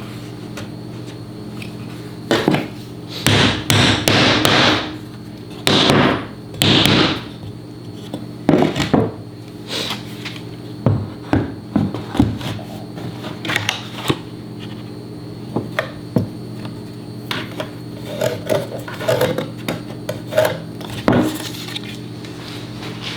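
Irregular knocks, clatter and a few longer scrapes of tools and wood being handled on a workbench, over a steady low hum.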